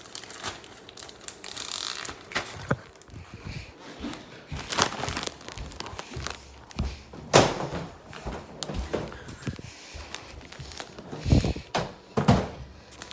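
Objects being handled and set down: scattered irregular thumps and knocks with some rustling, the loudest thump a little past the middle.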